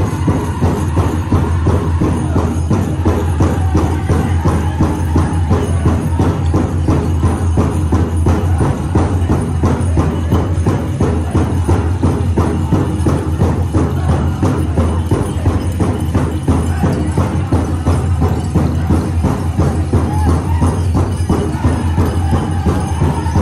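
Powwow drum group playing a big drum in a steady, fast beat, with high-pitched singing heard near the start and again near the end.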